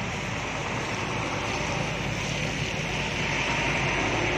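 Heavy rain hissing steadily, with a bus's diesel engine running low underneath as the coach pulls slowly out.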